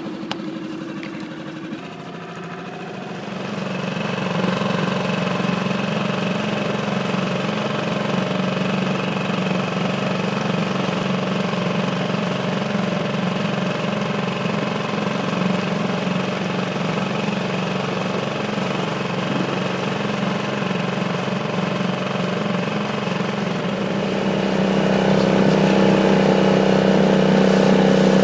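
Small outboard motor pushing an inflatable boat along, running steadily. It picks up about three seconds in and gets louder again near the end.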